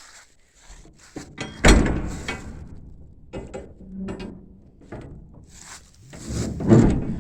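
Steel shipping-container door being worked: a loud metal bang about one and a half seconds in that rings out, followed by more clanks and scraping, and another loud clatter near the end.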